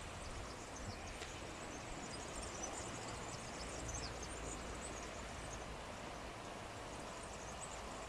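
Small birds chirping and twittering, many short high calls scattered throughout, over the steady rush of river water and a low rumble.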